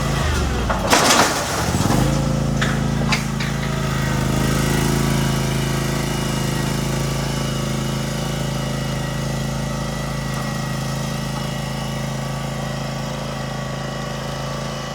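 Lawn mower engine running steadily. Its pitch dips briefly and recovers about a second in.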